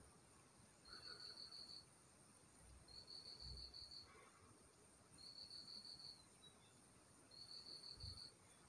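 Faint cricket chirping: short pulsed trills, each under a second long, repeating about every two seconds, four times.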